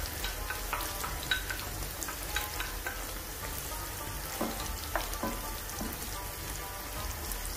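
Eggplant slices sizzling in hot oil in a frying pan, with frequent small crackles and pops. A wooden spoon stirs tomato sauce into minced meat in a second pan.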